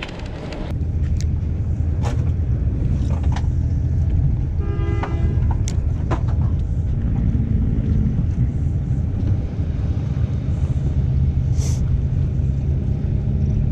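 Steady low, engine-like rumble throughout, with scattered light clicks as the spinning reel and terminal tackle are handled. A short horn-like tone sounds about five seconds in.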